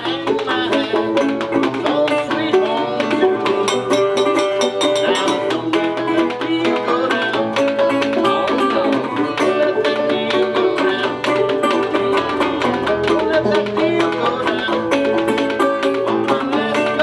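Acoustic string-band instrumental: banjo picking and guitar over a steady scraping and clicking washboard beat.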